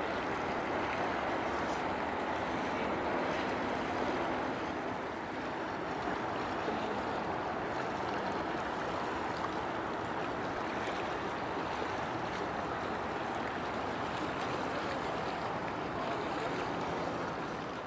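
Steady rushing wash of water along the shore, with no distinct engine note.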